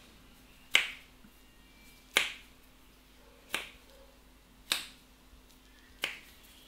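Five sharp snaps from the barber's hands, evenly spaced about a second and a half apart, each with a short decaying tail.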